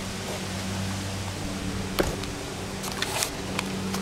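Steady low mechanical hum over a background hiss, with a few sharp clicks about halfway through and a small cluster of them near the end.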